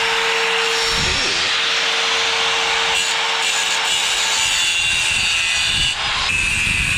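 Electric angle grinder grinding steel sheet metal, a continuous harsh grinding noise, its tone shifting a little after six seconds in.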